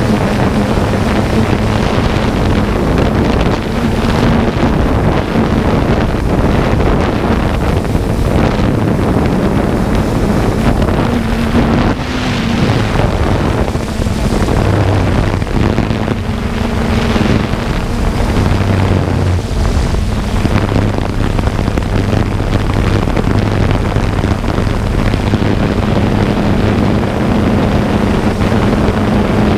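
A drone's electric motors and propellers running in flight, heard through its onboard camera: a loud, steady buzzing hum whose pitch shifts up and down a little as the throttle changes, with wind rushing over the microphone.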